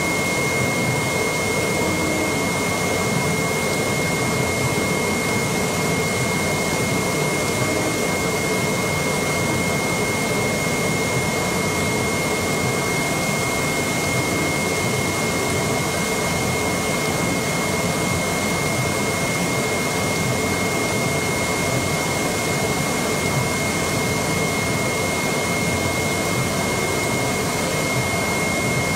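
AOKE DCH-series flatbed CNC cardboard cutter running as it cuts 2 mm E-flute corrugated sheet: a steady machine noise with a constant high-pitched whine.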